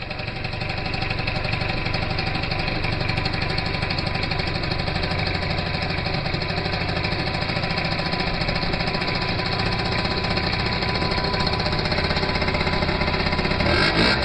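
Gilera Runner scooter engine running steadily at idle after an engine repair.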